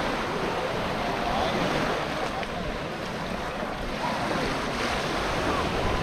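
Sea surf washing onto a sandy beach in a steady rush, with wind buffeting the microphone.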